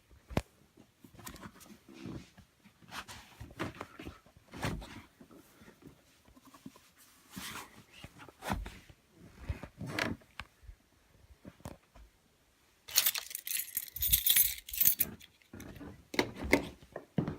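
Irregular knocks and rustles of things being handled. About thirteen seconds in comes a two-second burst of bright, high jingling.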